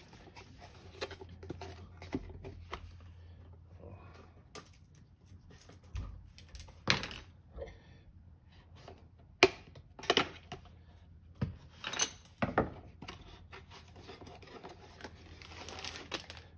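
A cardboard knife box being handled and opened on a wooden workbench: scattered clicks and several sharp knocks as the box is turned, stood on the bench and its lid worked off, with some rustling near the end. A low steady hum runs underneath.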